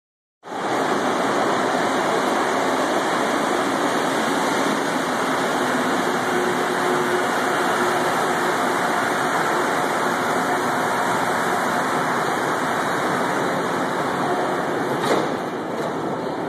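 Bombardier MR-73 rubber-tyred metro train pulling into a station platform: a loud, steady rumble and hiss from its running gear as it passes and slows to a stop. A short knock comes near the end.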